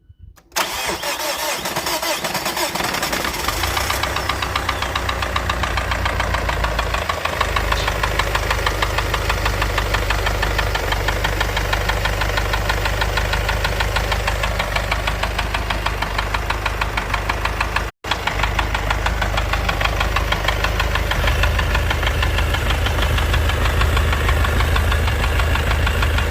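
Mazda CX-7 engine starting up about half a second in and then running with a rapid, steady clicking over the engine note. This is the clicking whose cause the owner is asking about.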